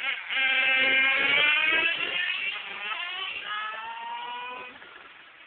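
Kyosho Inferno GT2 radio-controlled car running at speed past the listener. Its motor's high, buzzing whine slides up and down in pitch, then fades away about four and a half seconds in.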